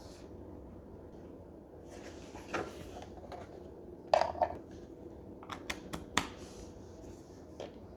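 Handling noises: a soft rustle, then a cluster of sharp clicks and knocks about four seconds in, several more sharp clicks a little later and one near the end, over a faint steady hum.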